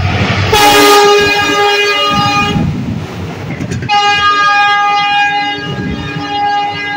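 Express train rushing through at speed: a burst of noise as the locomotive passes, then its horn sounds in two long blasts, the second starting about four seconds in, over the rumble of coaches going by.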